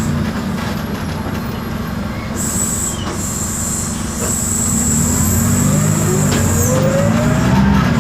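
Isobus City 1200 city bus running, heard on board: its MAN diesel engine and ZF automatic driveline, growing louder after about four seconds, with a whine rising in pitch near the end. A thin high whistle starts about two and a half seconds in and stops about a second before the end.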